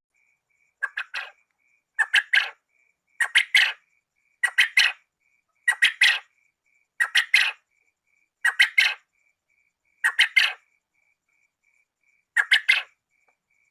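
Quail calling: a short three-note call repeated nine times, about every second and a half, with a longer pause near the end. A faint, evenly pulsing high beep runs underneath.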